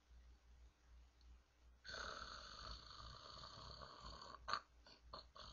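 Snoring: a long, breathy snore starts about two seconds in and carries on, with a sharp click near the end.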